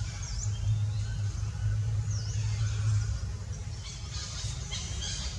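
Outdoor background sound: a steady low hum, with two short high chirps early on and a spell of dense high chittering near the end.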